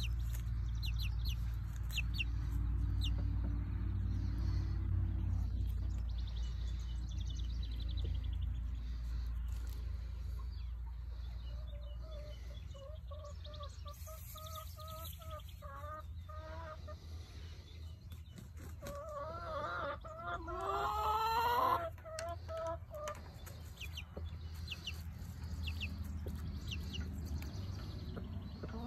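Young chickens calling: thin high peeps in the first several seconds, then a run of wavering calls, the loudest a drawn-out call rising in pitch a little past the middle. A low rumble sits under the first half.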